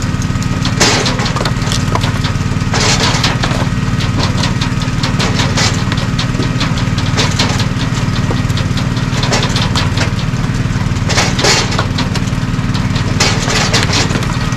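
Split firewood dropping off a conveyor onto a woodpile, the pieces clattering and knocking together at irregular moments, a dozen or so times, over the steady hum of the splitter's engine.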